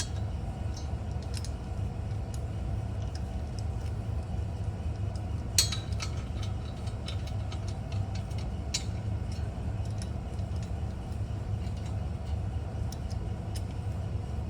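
Scattered light metallic clicks and clinks of a wrench snugging the 10 mm header flange bolts, with one sharper knock about five and a half seconds in, over a steady low hum.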